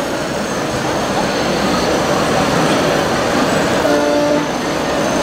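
Steady, dense rushing noise with a short horn-like toot, about half a second long, a little under four seconds in.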